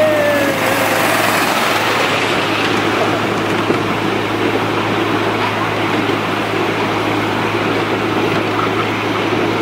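Ride-on miniature railway train running along the track: a steady rumble of wheels and drive with a rushing noise, unchanging throughout.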